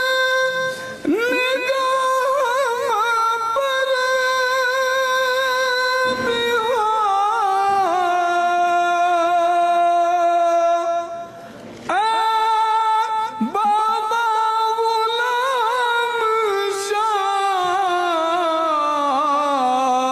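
A devotional singer's voice singing a manqabat, a Sufi song of praise, in long drawn-out notes with wavering ornaments. There is a short pause for breath about halfway through.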